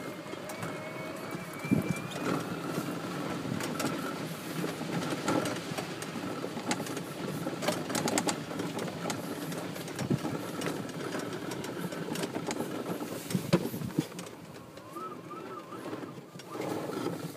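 Yamaha G29 golf cart driving, a steady running rumble and rattle with sharp knocks from bumps, and a thin whine that climbs in pitch about two seconds in.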